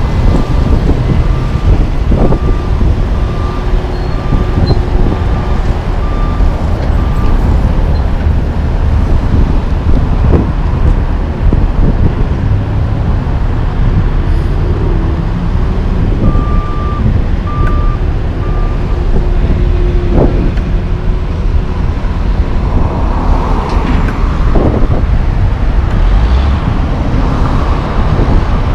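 Heavy diesel trucks running in a steady low rumble, with a backup alarm beeping at an even pace through the first several seconds and again briefly midway.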